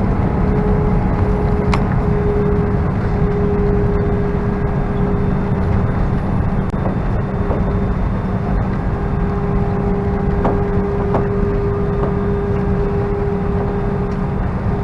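Airbus A319-131 cabin noise heard from a window seat: a steady rumble of the IAE V2500 jet engines and rushing air, with a steady hum running through it and a few faint clicks.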